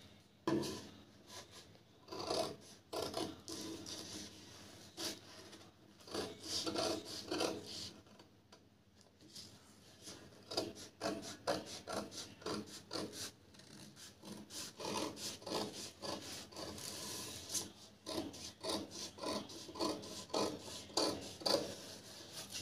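Large tailor's scissors cutting through a sheet of paper pattern, a run of crisp snips several a second with a short pause about halfway through.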